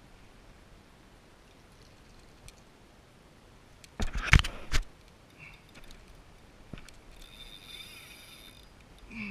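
Three loud, sharp knocks in quick succession about four seconds in, over a faint steady background; a faint high buzz follows later for a second or so.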